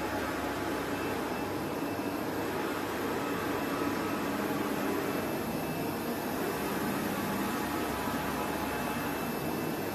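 Steady, even rushing hum, like a fan or air-conditioning unit running, with no distinct events.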